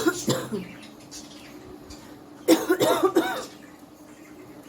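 A woman coughing, genuinely, from a bad cough of her own: a short double cough at the start, then a louder, longer, voiced coughing fit about two and a half seconds in that lasts about a second.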